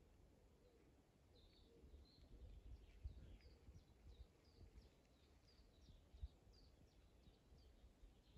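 Faint songbird chirping: a quick series of short, high notes repeating for several seconds over a low rumble, with a couple of soft thumps.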